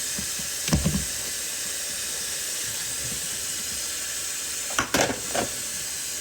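Water running steadily from a tap, with a short knock about a second in and a brief clatter around five seconds.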